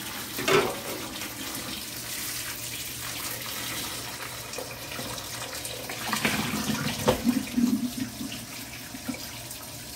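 Cold water running steadily from a kitchen faucet into the sink while potatoes are scrubbed by hand under it. There is one knock about half a second in and irregular knocks and rubbing between about six and eight seconds in.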